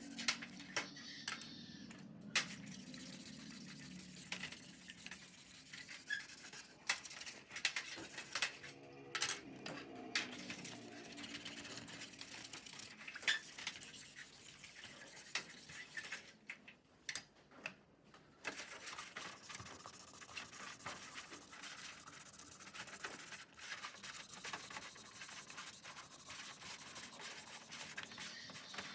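Hand scrubbing with a brush on metal parts, broken by frequent small metal clinks and knocks.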